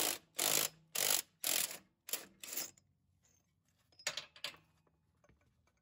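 Impact wrench hammering in short bursts, about two a second, on the 1¼-inch nut of a Jeep JL Wrangler's transfer case front output shaft flange, breaking the nut loose. After a pause it gives two or three more short bursts.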